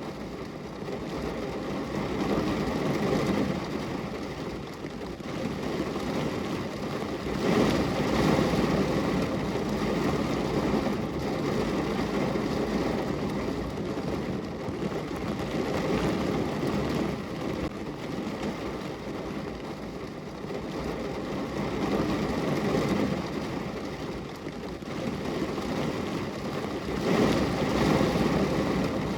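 Steady rainfall, a dense even rushing that swells louder a few times.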